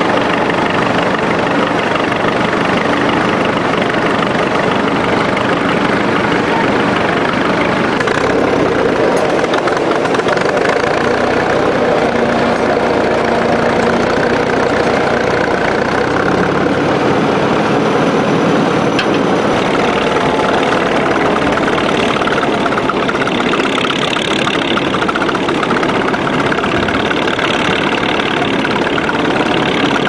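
Vintage tractor engine running steadily under load while pulling a mounted plough, heard from close alongside.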